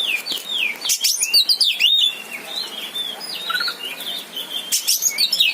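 Oriental magpie-robin (kacer) singing: a fast run of loud whistled notes, many sliding downward, mixed with a few sharp harsh clicks about a second in and again near the end.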